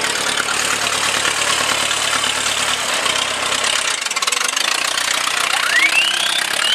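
A parade novelty car's engine running; its low hum drops away about three seconds in. A few short rising whistles sound near the end.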